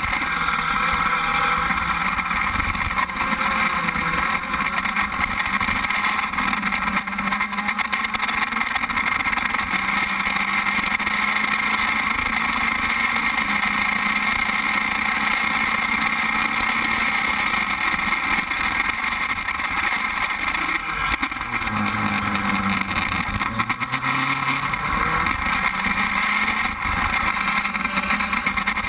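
Formula Speed 2.0 open-wheel race car's engine running at speed on track, heard from onboard over a rush of wind and road noise. About two-thirds of the way through the engine note drops in steps, then climbs again.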